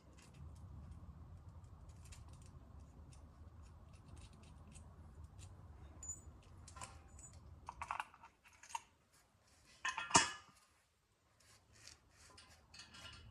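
Irregular metallic clicks and clinks of a wrench and wheel-mounting hardware as a wheel is bolted onto an air compressor, with a louder clank about ten seconds in.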